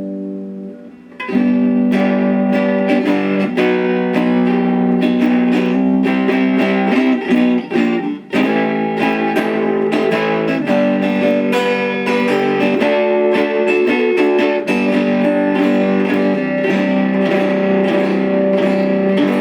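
Electric oil can banjo (a five-string banjo neck on a Marvel Mystery Oil can, with a lipstick tube pickup) played through a Line 6 amplifier on its blues level 2 setting. A chord rings at first, then a run of quickly picked notes starts about a second in and carries on, with a short break near the middle.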